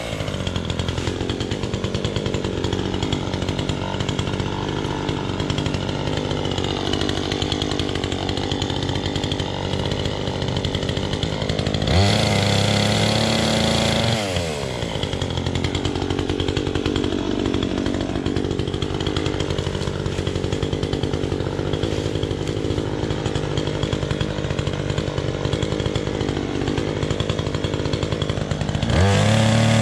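Gas chainsaw cutting through leafy branches, the engine pulling down under load as the chain bites. It revs up freely for a couple of seconds about twelve seconds in, then drops back into the cut, and revs up again near the end.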